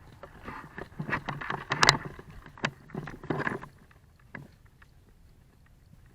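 Irregular rustling and crunching of a player moving on foot through the brush, loudest over the first three and a half seconds and then fading to a few faint ticks.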